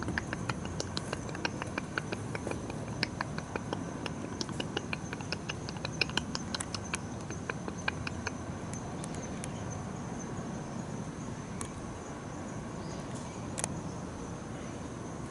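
Outdoor ambience with a steady high-pitched insect trill, overlaid by a run of quick, irregular sharp clicks that thin out about halfway through.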